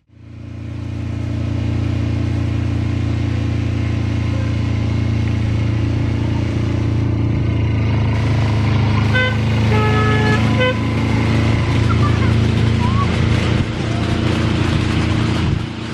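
A miniature-railway replica diesel locomotive's engine running with a steady drone as it hauls passenger carriages past. A short two-tone horn sounds about ten seconds in.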